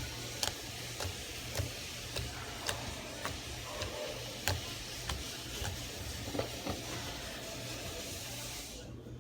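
Slime being squeezed and poked by hand, giving sharp clicks and pops every half second or so over a steady hiss and low hum.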